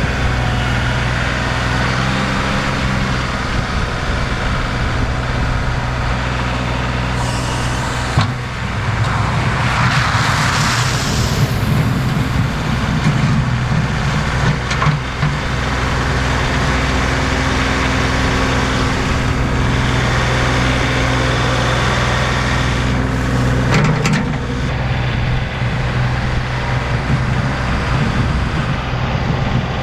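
Compact tractor's diesel engine running steadily under load while plowing snow, with a brief hiss about ten seconds in.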